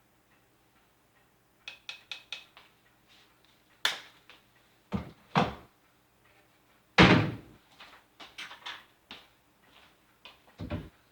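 Kitchen containers and utensils knocked and set down on a counter: a few light clicks about two seconds in, then several heavier thuds, the loudest about seven seconds in.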